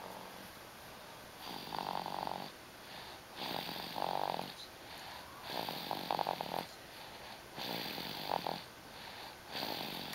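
Snoring: five snores, each about a second long, coming about every two seconds.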